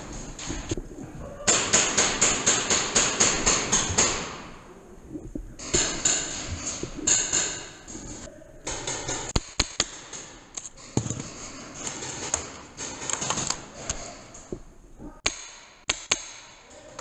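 Paintball markers firing: a rapid string of about ten shots at some four a second, then scattered single shots.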